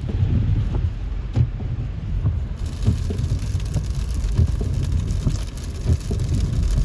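Steady low road rumble inside a moving car's cabin on a snowy road, with scattered light ticks and taps.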